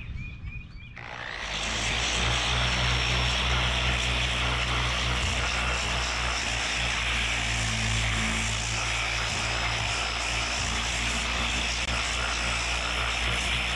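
Electric dual-action (DA) sander with 80-grit paper starting about a second in and running steadily: a motor hum under an even sanding hiss as it knocks down a skim coat of cured Duraglas fiberglass filler.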